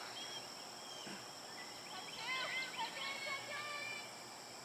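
Faint, distant high-pitched shouts and calls of players across a soccer field, clustered a couple of seconds in, over a steady high hiss.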